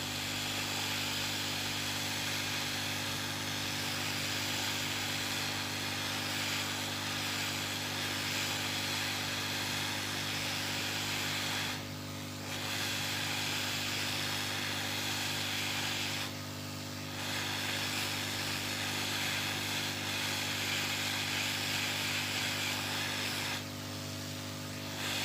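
Hot air rework blower running at about 300 °C, heating the main IC on an LED TV mainboard: a steady rushing hiss over a low hum, dipping briefly three times.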